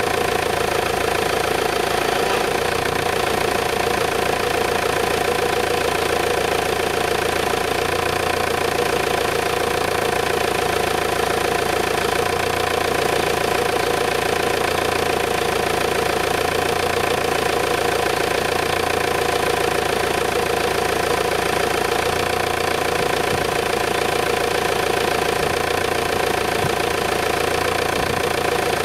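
Volkswagen Sharan's 1.9 TDI four-cylinder turbodiesel idling steadily, with a steady whine from its power steering pump. The pump had gone noisy from low fluid through a leak and has just been topped up with ATF. The owner says something is evidently wrong with the pump.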